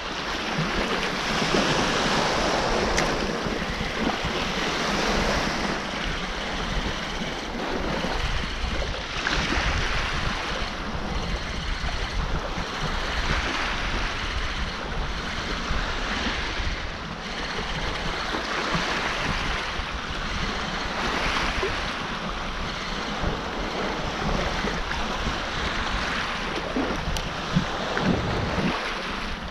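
Small waves washing onto a stony shoreline in irregular surges every few seconds, with a low rumble of wind on the microphone.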